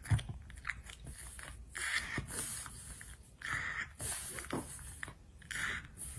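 A resting dog's quiet mouth noises and breathing: soft clicks and wet smacks, with a few short breaths.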